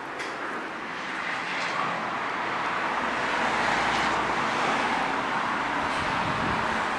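Steady rushing noise of a passing vehicle, swelling over the first few seconds and then holding.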